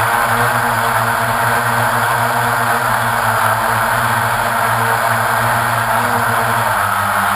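A drone's motors and propellers running steadily, heard close up through the camera on board: a hum of several tones over a dense whirring hiss, dipping slightly in pitch near the end.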